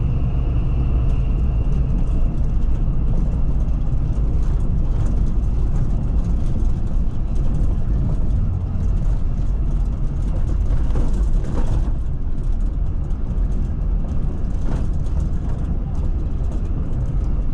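Cabin noise inside a moving Mercedes-Benz O500 RSB coach: a steady low rumble of engine and road, with a brief louder swell about eleven seconds in.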